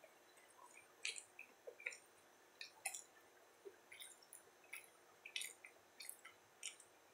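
Faint, wet mouth sounds of someone chewing a mouthful of sub sandwich: irregular soft clicks and squishes, a few each second.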